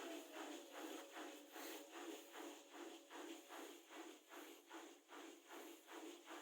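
Bosch WLP20265OE washing machine with an inverter motor, running its spin cycle quietly. The drum gives a soft rhythmic swish about four times a second over a faint steady motor whine. The owner calls it not noisy.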